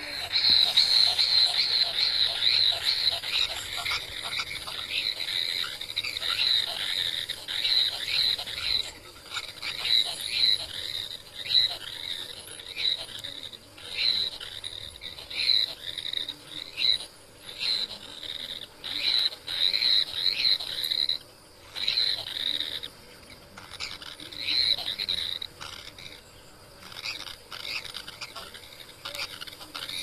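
Nestling birds giving rapid, repeated high-pitched calls with a snake in their nest. The calls come in a dense run at first, then in shorter bursts broken by pauses.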